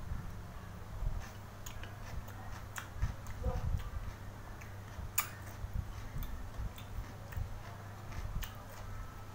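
A person chewing and smacking on a mouthful of fish cake, making irregular wet clicks and smacks over a low steady hum.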